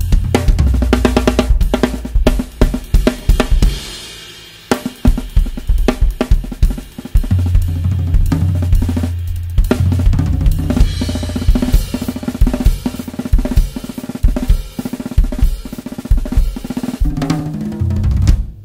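Acoustic drum kit with five freshly retuned toms played in a busy beat with fills: kick, snare, hi-hat and toms, with cymbal crashes about four seconds in and again around eleven seconds. The playing stops abruptly at the end.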